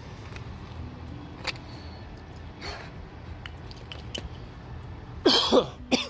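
A young girl coughs twice in quick succession near the end, two short loud coughs, each falling in pitch. They are the coughs of her chronic habit cough.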